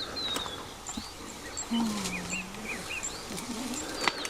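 Outdoor bush ambience with several small birds chirping and whistling in short repeated calls, a few sharp knocks, and a short low hum about halfway through.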